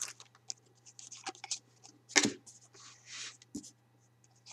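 Panini Titanium hockey trading cards handled by hand: light taps and scrapes of the cards sliding against one another, with a louder scrape a little over two seconds in and a short sliding hiss about a second later.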